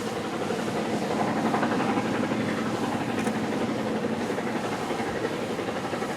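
Canadian Pacific 2816 steam train running, a steady rush of rolling and running noise with no whistle.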